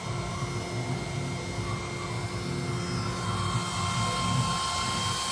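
AccTek CNC router's spindle running and cutting into the sheet, a steady machine whine with several high tones over a fluttering low rumble; another high tone joins about three seconds in.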